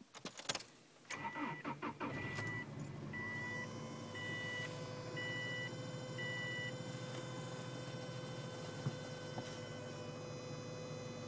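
2003 Subaru Legacy cold start: keys rattle, the starter cranks for about a second and the engine catches, while a warning chime beeps six times about once a second. The engine then idles steadily with a constant whine running over it, the weird cold-start noise the owner is asking about.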